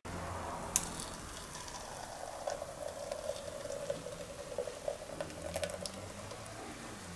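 Banana milk poured from a jug into a home bakery's bread pan, splashing and gurgling as it fills the bottom of the pan, then thinning out near the end. A light click comes about a second in, and a few more come during the pour.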